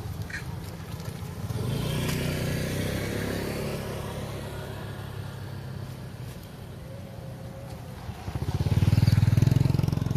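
Motorbike engines passing close by twice: one swells up about two seconds in, and a louder one near the end.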